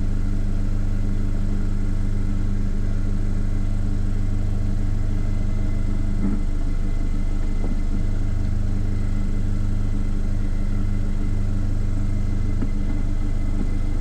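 Cyclone key-cutting machine's electric motor running with a steady low hum, with a couple of faint knocks in the middle as keys are handled in its clamps.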